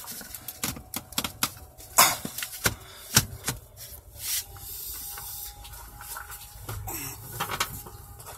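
Irregular clicks and knocks of steering-column parts being turned and worked loose by hand, with the loudest about two and three seconds in and a short scrape a little after.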